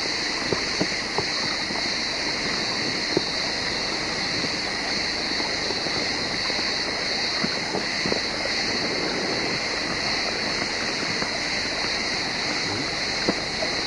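A small forest stream running, heard as a steady hiss, with a few faint clicks scattered through.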